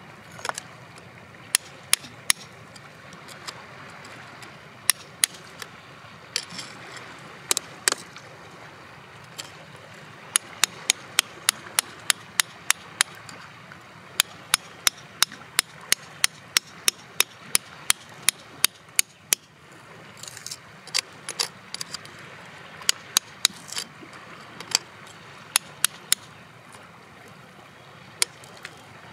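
Small hammer striking a chisel held against rock: sharp clicks of metal on metal, in runs of several strikes at about two to three a second with short pauses between runs.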